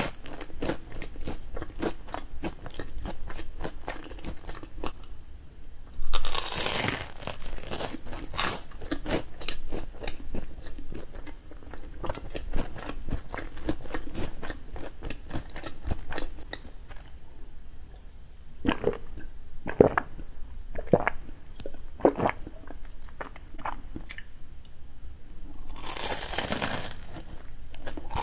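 Close-miked chewing of a batter-coated corn dog: irregular crunches and moist mouth clicks, with two longer, louder bursts about six seconds in and near the end.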